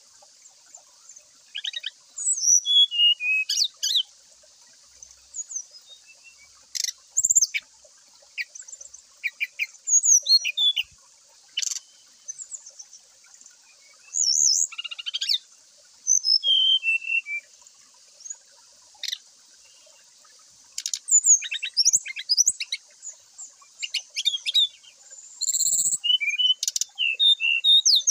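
Brown-chested jungle flycatcher singing in loud open song: short bursts of clear whistled phrases, pitch glides and chirps, with pauses of a second or two between them.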